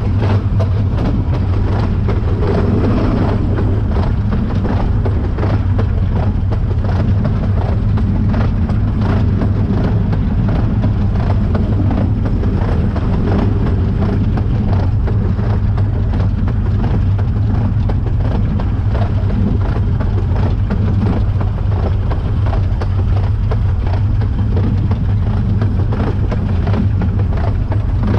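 A 2-6-2 narrow-gauge steam tank locomotive running along the line, heard from its cab: a steady, loud rumble with many small knocks and clatters throughout.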